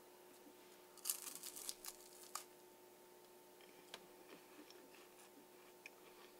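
Mostly near silence with a faint steady hum; about a second in, a short patch of crisp crunching as a chocolate-covered wafer is chewed, with one more click a moment later.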